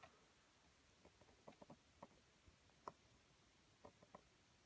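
Near silence with a handful of faint, scattered clicks from laptop controls being worked, as the footage is stepped through in a video editor.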